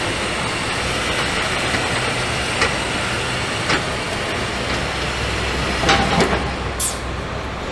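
Truck assembly-hall noise: a steady hum and rush of machinery, with a few sharp metallic clicks and knocks from parts being handled, and a short high hiss near the end.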